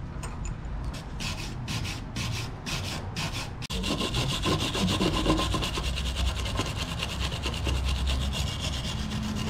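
A metal bike part clamped in a bench vise is worked by hand with rhythmic scraping strokes, about three a second. About three and a half seconds in, a hand-held power tool's spinning abrasive disc takes over, grinding the part with a fast, continuous rasp and a steady whine.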